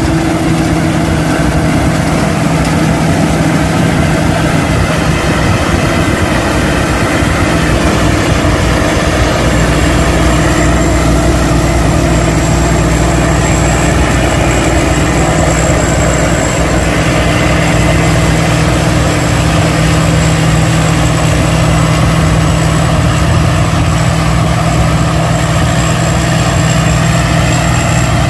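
Tracked rice combine harvester built by P. Charoen Phatthana, its diesel engine running steadily under load while harvesting rain-flattened rice.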